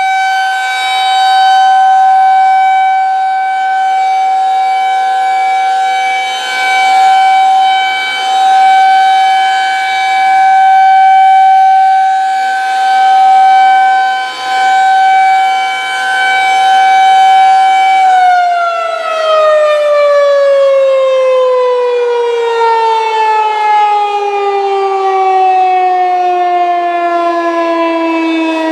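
Federal Signal 2001-130 rotating outdoor warning siren sounding its steady Alert tone, swelling and fading in loudness every couple of seconds as the rotating head sweeps past. About two-thirds of the way in the tone cuts power and the siren winds down in a long, smoothly falling pitch.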